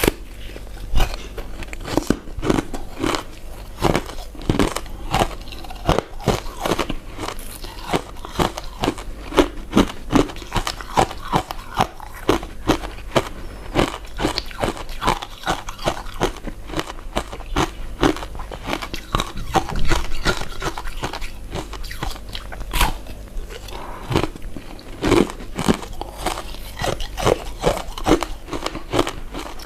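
Chewing and biting of chewy glutinous rice desserts (rice cakes, sweet potato balls, mochi): a steady run of quick mouth clicks, a couple or more a second.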